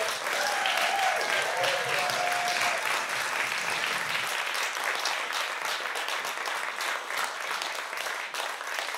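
Theatre audience applauding steadily after a spoken-word performance.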